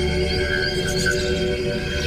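Background music: an ambient electronic piece of held tones over a low drone.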